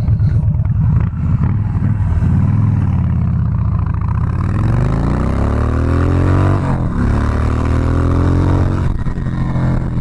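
Harley-Davidson Softail Slim's 103ci Twin Cam V-twin engine running under load on the road. Its pitch climbs for a few seconds, drops sharply about seven seconds in as it shifts up, then pulls again.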